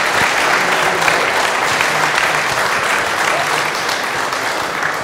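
Audience applauding steadily, the applause starting to fade near the end.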